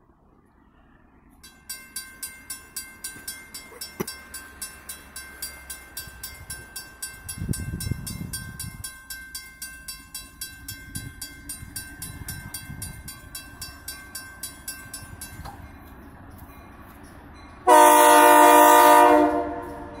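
Grade-crossing warning bell ringing in rapid, steady strikes, which stops about three-quarters of the way through. Near the end comes one loud, roughly two-second blast of the approaching GE B23-7 diesel locomotive's multi-chime air horn.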